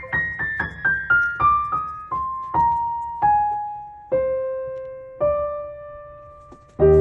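Background piano music: a run of single notes stepping down in pitch and slowing, then a fuller, louder chord with bass near the end.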